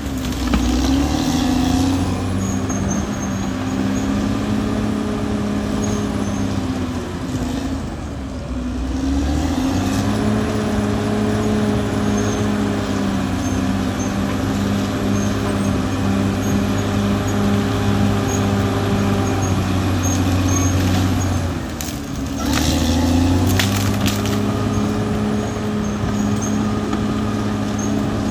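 Caterpillar D6R XL bulldozer's diesel engine running hard, its pitch sagging and recovering about eight seconds in and again about twenty-two seconds in. A few sharp clanks come with the second dip.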